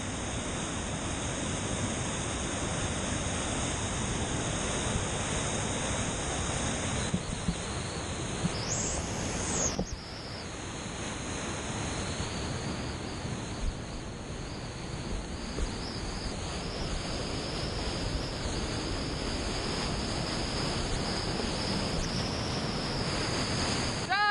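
Whitewater rapids rushing over a rocky drop: a steady, loud rush of white water. A brief high pitched sound cuts in right at the end.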